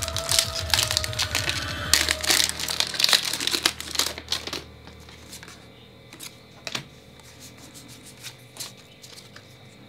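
A foil trading-card booster pack crinkling loudly as it is handled and torn open. After about four and a half seconds it quietens to light clicks and flicks as the cards are handled.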